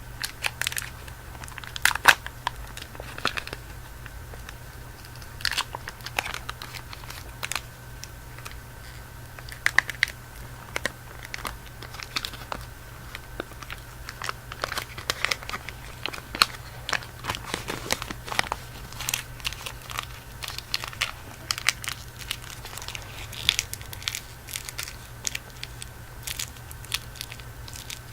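Candy wrapper crinkling and tearing close to the microphone, in irregular crackles spread through the whole stretch.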